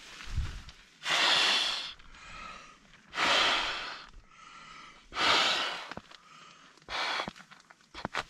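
A man blows four long breaths into the valve of a Vango inflatable pillow, a puff of rushing air about every two seconds, the last one shorter.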